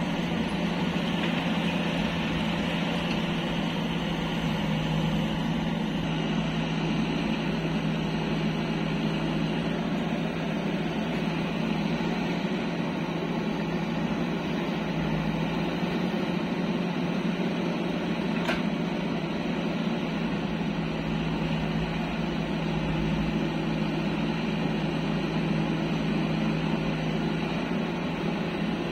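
Diesel engines of a JCB 3DX backhoe loader and nearby farm tractors running with a steady, even drone.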